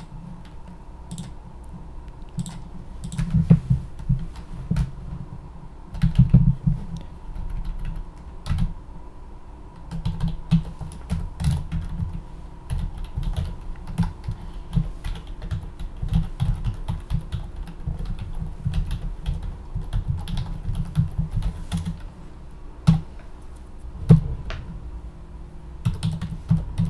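Typing on a computer keyboard: irregular runs of key clicks, with brief pauses about nine seconds in and again near twenty-two seconds.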